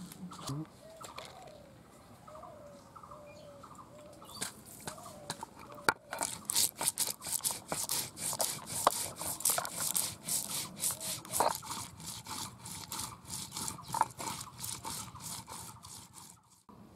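Mustard seeds being crushed on a stone grinding slab with a hand-held grinding stone (sil-nora): a quick run of gritty crunching and rasping strokes starts about six seconds in and stops just before the end. Before that, birds call faintly in the background.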